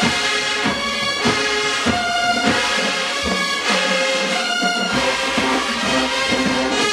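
HBCU marching band playing: a brass section of trumpets and trombones holding loud chords over a steady beat of drum hits.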